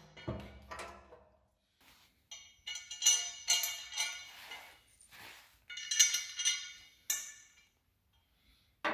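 Light metallic clinks from a steel spreader tube being handled against the steel hopper, each clink ringing briefly, in several clusters with short quiet gaps between them.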